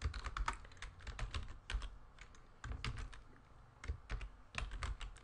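Typing on a computer keyboard: short runs of quick keystrokes with brief pauses between them, each key a sharp click with a dull knock underneath.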